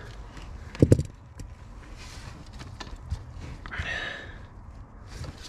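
Small clicks and light rustling from handling the wiring, with one short thump about a second in.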